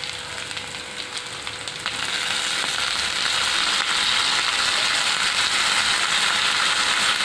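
Hot oil sizzling in a kadai of frying onions and green chillies. About two seconds in, as soaked split lentils are tipped into the oil, the sizzle turns louder and denser and stays that way.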